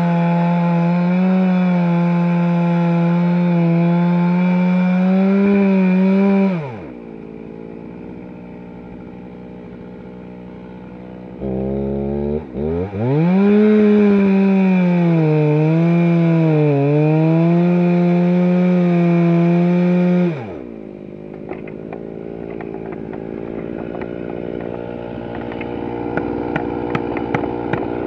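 Stihl two-stroke chainsaw at full throttle on a fallen log, its pitch sagging now and then under load. It is let off about six seconds in and winds down, revs back up about thirteen seconds in to cut again, and winds down once more about twenty seconds in.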